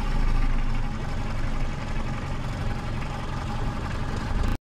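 Suzuki 115 hp four-stroke outboard motor idling steadily just after starting, settling slightly after about a second. The sound cuts off suddenly near the end.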